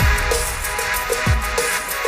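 Background music with a steady beat: sustained tones over deep, pitch-dropping bass drum hits, two of them here, and fast ticking percussion.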